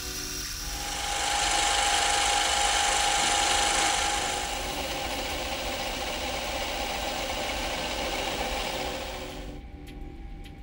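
Lathe spindle running while a hand graver cuts a small brass part: a steady cutting hiss with a thin whine, loudest in the first few seconds, then softer. It stops abruptly about a second before the end, followed by a few faint clicks.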